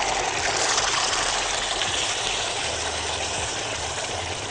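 Tomato sauce sizzling as it hits hot olive oil and garlic in a wok, a steady hiss that slowly dies down.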